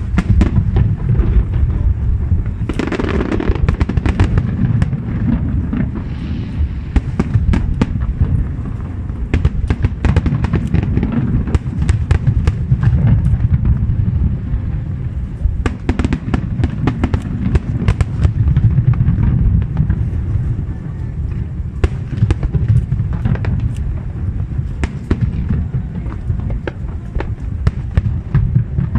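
Fireworks display going off without a break: a dense, continuous rumble of booms with many sharp cracks and crackles throughout.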